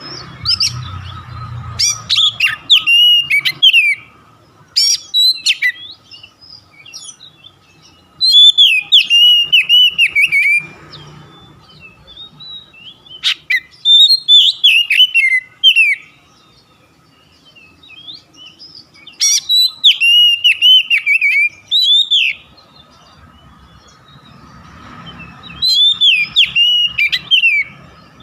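Oriental magpie-robin singing in loud, varied whistled phrases of two to three seconds each, about six of them separated by short pauses. A faint steady hum sits underneath near the start and the end.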